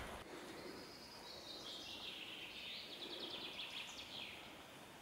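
A songbird singing faintly: a string of high notes with a quick trill in the middle that stops about four seconds in.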